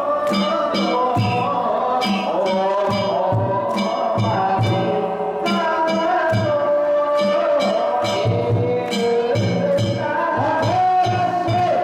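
Music: a held, wavering melody over steady low drum beats and bright metallic strikes about three times a second.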